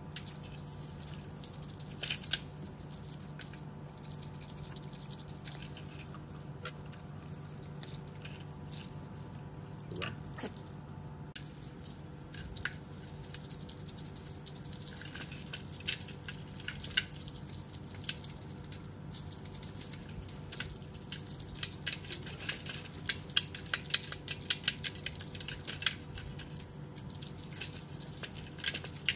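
Light jingling and rattling clicks from a dangling cat toy as the cats swat and leap at it. The clicks are scattered at first and come thick and fast in the second half, over a low steady hum.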